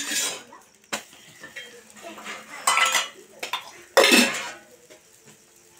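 Metal spatula scraping and knocking against an iron frying pan as an omelette is turned and pressed, in a few short bursts: a sharp knock at the start, a click about a second in, then two longer scrapes, the loudest around four seconds in.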